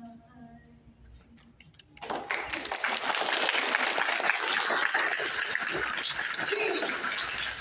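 A faint sung note dies away, then an audience starts applauding about two seconds in, steady and dense, easing off near the end.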